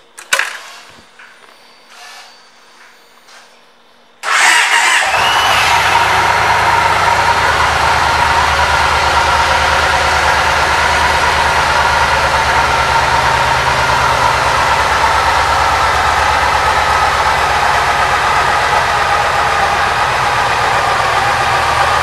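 A few faint clicks, then about four seconds in the 2006 Yamaha Stratoliner S's air-cooled V-twin engine starts with a sudden rise and settles into a steady idle.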